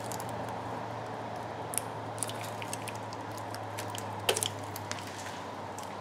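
Faint scattered clicks and rustles of gloved hands handling wiring and tools, over a steady low hum.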